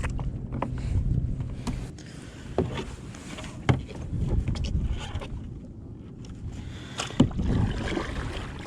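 Handling noises on a fishing kayak: scattered sharp clicks and knocks of rods and tackle being worked, likely while tangled lines are cleared, over a low rumble of water and wind.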